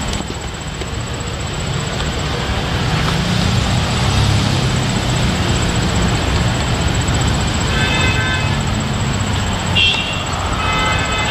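Steady road traffic noise, a continuous rumble, with a few short high-pitched tones about eight and ten seconds in.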